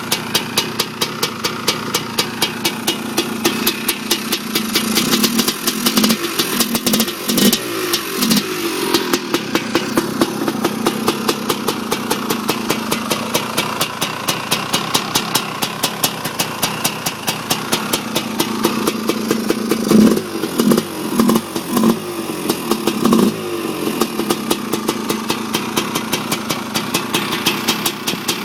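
Honda TRX250R's single-cylinder two-stroke engine, fitted with an ESR 310PV big-bore cylinder, idling with a steady rapid popping. A few quick throttle blips come about five seconds in and again about twenty seconds in. This is its first run after a complete rebuild, and it runs cleanly.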